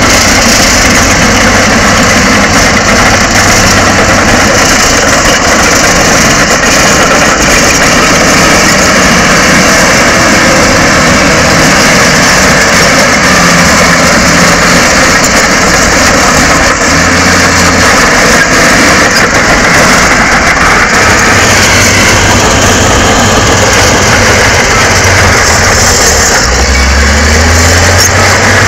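Shantui SD16E crawler bulldozer's diesel engine running steadily under load as the dozer pushes and spreads soil. The low engine note shifts near the end.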